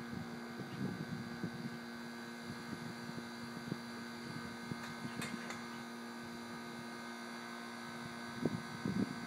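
Faint steady hum, with a few soft ticks and a short patter of slightly louder knocks near the end.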